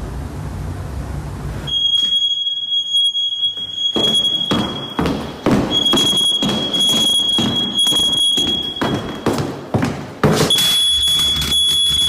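Smoke alarm sounding a steady, piercing high beep that starts about two seconds in and cuts out twice, once briefly and once for over a second. Loud irregular thumps and knocks of hurried footsteps and handling run under it.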